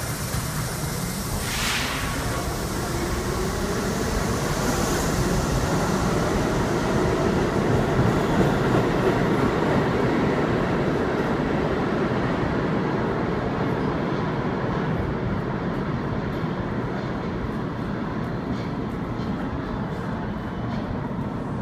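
R68 subway train pulling out of the station and accelerating away, its motor whine rising in pitch over the first several seconds over the rumble of wheels on the rails. A short hiss comes about two seconds in. The sound swells to its loudest about eight seconds in, then fades and dulls as the train recedes down the tunnel.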